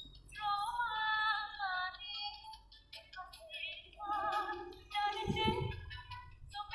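Background music with a high-pitched female singing voice, sung in wavering phrases with vibrato.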